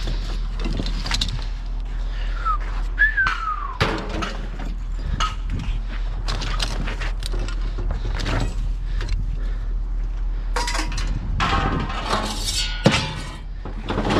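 Scrap metal being handled and dropped: a run of irregular clanks and clatters, with a brief falling squeak a few seconds in, over a steady low hum.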